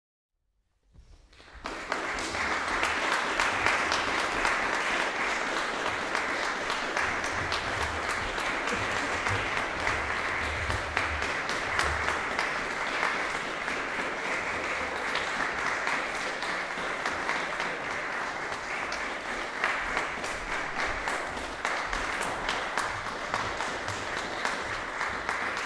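Audience applauding, breaking out about a second in after complete silence and then holding steady.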